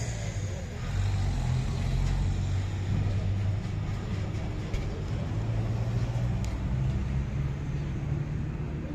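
Street traffic noise: a steady low rumble of vehicle engines, with a couple of faint ticks.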